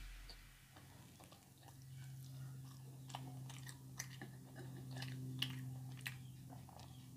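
Faint close-up chewing of fried fish, with scattered soft mouth clicks and smacks, over a steady low hum.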